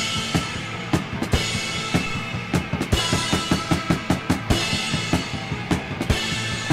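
Live band playing an instrumental passage: a drum kit keeps a fast, busy beat with several cymbal crashes, over a sustained electric guitar.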